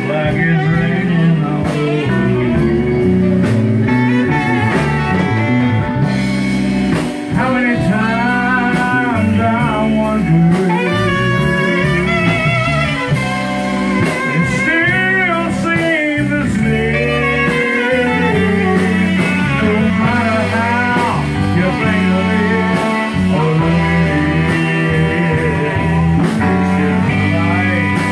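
Live band playing a blues-style ballad, with saxophones and guitar over drums.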